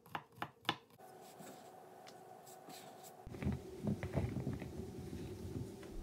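Chef's knife chopping onion on a wooden cutting board: a quick run of about five chops in the first second, then scattered knife knocks over a faint steady hum, joined by a low rumble about three seconds in.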